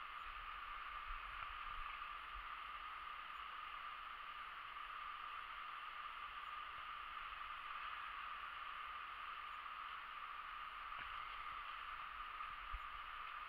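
Steady rush of a fast-flowing river, with an uneven low rumble underneath and a small knock near the end.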